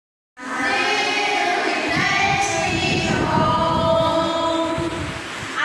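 Loud videoke (karaoke) singing: an amplified voice holding long sung notes over backing music played through loudspeakers.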